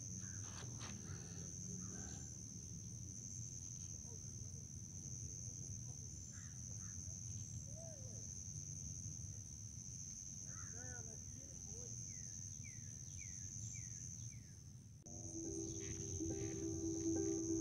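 A steady high-pitched insect chorus drones on, with a bird giving a few short runs of falling chirps now and then. About fifteen seconds in the insects cut out, and background music begins.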